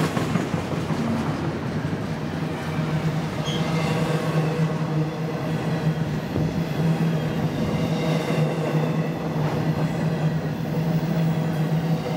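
Freight train cars rolling past close by, a steady rumble of steel wheels on the rails.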